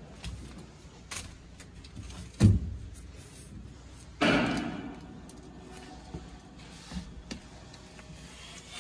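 Knocks and thumps of someone moving about a boat's cabin: a heavy thud about two and a half seconds in, then a louder knock with a short scrape about four seconds in, and a few light taps between.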